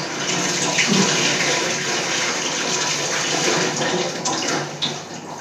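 Water running steadily from a tap, as when dishes are washed, tapering off near the end.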